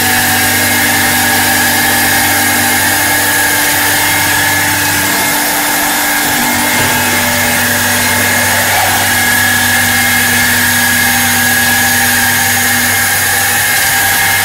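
Hempel CP-500 automatic woodturning and sanding lathe running: a steady electric-motor hum with a constant high whine over a broad machine hiss. The low hum drops briefly about five seconds in.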